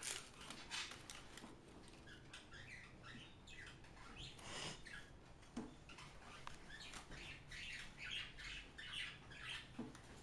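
Faint, irregular crackling and rustling of a taco and its paper wrapper being handled and eaten, many short crackles in quick succession.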